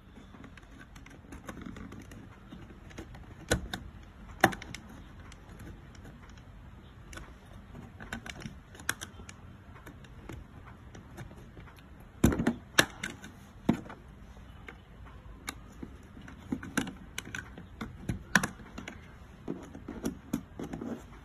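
Irregular plastic clicks and taps as the louver slats of a Mercedes W166 ML/GL rear AC vent grille are snapped into the housing by hand and with a small flat screwdriver, with the loudest cluster of clicks about halfway through.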